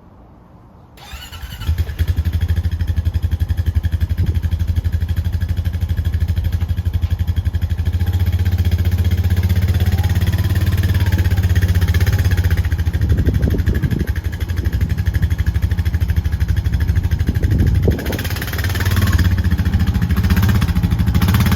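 Honda Rubicon 520 ATV's single-cylinder engine starting about a second in, then running at a steady idle.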